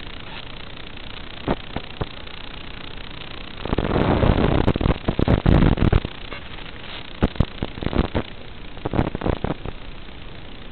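Steady hiss and crackle on the audio of an analog FPV video link. About four seconds in comes a loud, rough burst of noise lasting around two seconds, followed by scattered sharp crackles.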